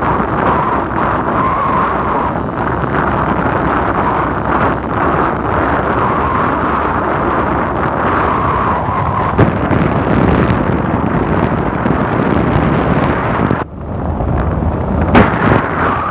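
Strong wind buffeting the microphone, a loud steady rumble that briefly drops out near the end.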